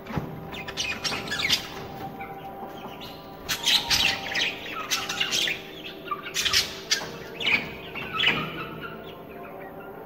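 Budgerigars calling in a series of short, sharp chirps and squawks, coming in clusters, busiest from about three and a half to eight and a half seconds in.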